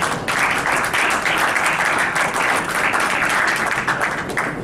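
Several people applauding together, a dense clapping that stops just before the end.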